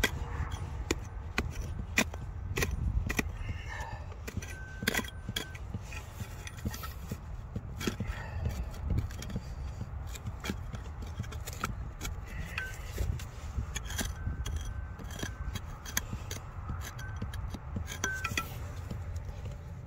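Hand tools chipping, tapping and scraping at weathered basalt to free a nodule: irregular sharp clicks and knocks of metal and stone, over a low steady rumble.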